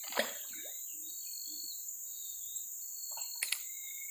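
Steady high-pitched drone of insects, with birds calling in whistled notes, some falling in pitch. A sharp click comes just after the start and two more close together near the end.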